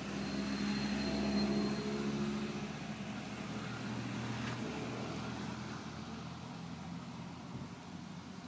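A motor vehicle engine running with a steady low hum. It is loudest in the first two seconds and then fades away, as a vehicle passing by does. A thin, high, steady tone sounds over it for the first two seconds.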